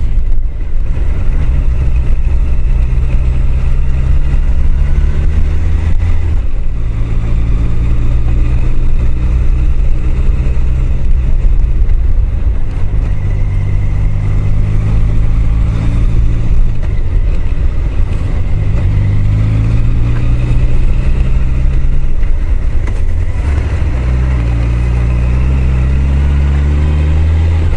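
Honda CBR1000F's inline-four engine running under way, its pitch climbing and dropping several times with throttle and gear changes. A heavy low rumble of wind sits under it on the helmet microphone.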